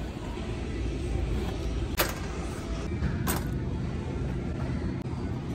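Wire grocery shopping cart rolling over the store floor with a steady low rumble, and two sharp knocks a little over a second apart as items are set into the basket.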